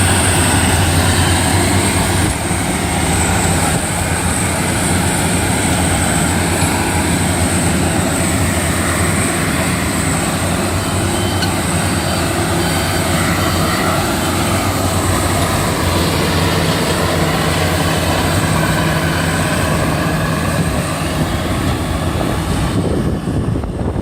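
Rice combine harvester running steadily at work, its engine humming under a continuous mechanical clatter and a high steady whine that fades just before the end.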